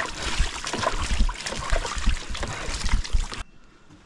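Water splashing and sloshing around a leaking canoe that has filled with water, with irregular knocks. It cuts off suddenly about three and a half seconds in.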